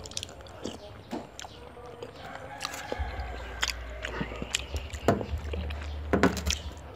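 Eating sounds: a metal spoon clicking against a small ceramic bowl, with chewing of a soft food. The clicks come scattered, and the loudest two are near the end.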